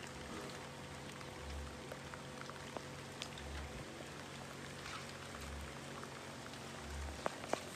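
Ground corn-cob meal pattering and rustling as a hand scoops it up, lets it trickle through the fingers and rakes through the pile, with scattered small ticks over a faint steady hum and two sharp clicks near the end.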